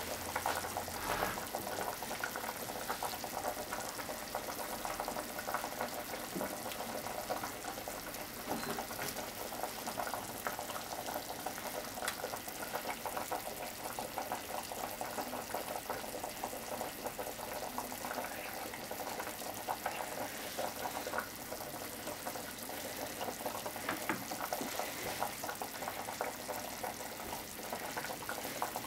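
Steady bubbling, crackling noise of a pot boiling on the stove, with a few faint handling knocks.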